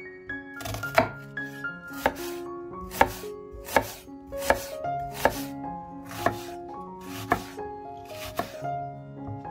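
Knife chopping on a cutting board, slow single cuts about once a second, over background music with held notes.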